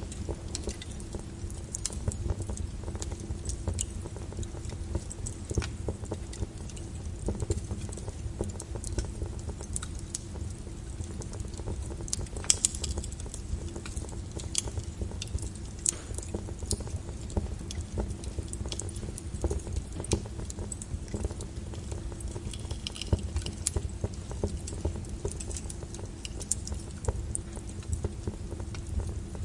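Steady brown noise with the crackle of a wood fire over it: irregular small pops and snaps, one of them louder about halfway through.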